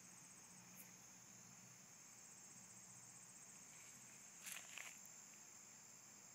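Faint, steady high-pitched trilling of crickets, with a tiny click under a second in and two brief soft rustles close together about four and a half seconds in.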